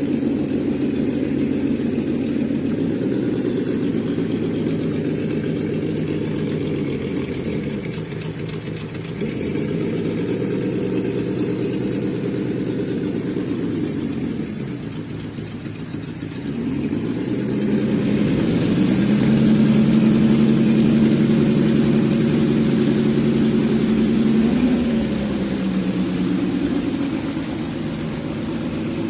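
Simulated engine sound from an ESS-Dual+ sound module in a Traxxas TRX-4 RC crawler, played through the model's small speaker and following the throttle. The engine note dips and picks up again twice, then rises to a louder, higher held rev from about two-thirds of the way in and drops back toward idle near the end.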